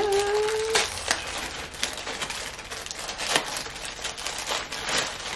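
Clear plastic wrapping crinkling and rustling in the hands, with many sharp little clicks as small plastic figure parts are taken out of it. A short hummed note rises and holds in the first second.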